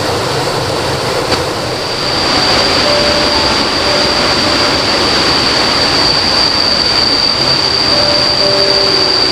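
Rushing river water, a steady loud hiss, with an insect's continuous high-pitched buzz or trill setting in about two seconds in.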